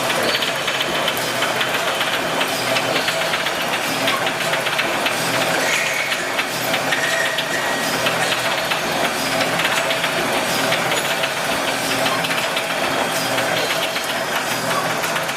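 Automatic brick force wire mesh welding machine running, a steady mechanical clatter with rapid clicks and rattles.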